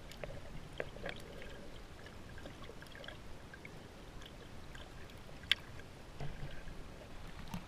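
Faint water sounds, gentle lapping and trickling, dotted with small scattered clicks and one sharper click about five and a half seconds in.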